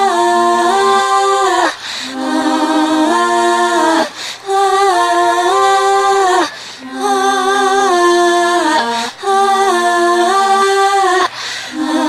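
Female voices singing an a cappella vocal harmony, played backwards: held chords that step up and down in pitch. The phrases are about two seconds long with short breaks between them.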